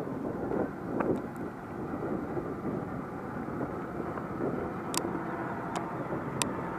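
Wind buffeting the microphone: a steady low rumbling noise, with a few sharp clicks in the last two seconds.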